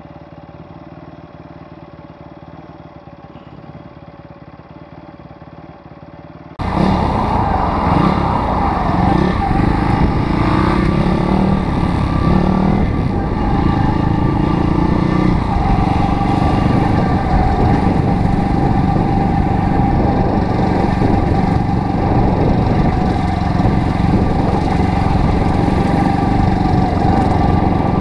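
Small pit bike engine idling quietly, then, after an abrupt jump about six seconds in, running loud under way with wind noise, its pitch rising and falling with the throttle.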